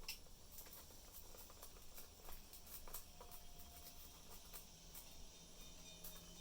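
Budgies moving about their cage: faint scattered clicks and scratches of beaks and claws, with a faint short note about three seconds in.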